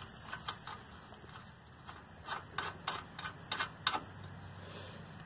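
Light metal clicks and ticks as a castle nut is spun by hand onto the stud of a new outer tie rod end: a few scattered clicks, then a quicker run of about eight in the middle.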